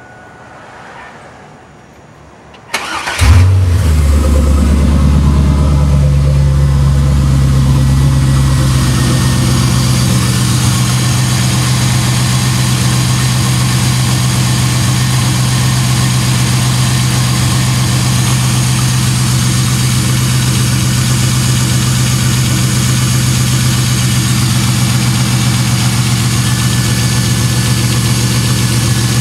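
GM LS1 5.7-litre V8 cranking and catching about three seconds in, then idling steadily.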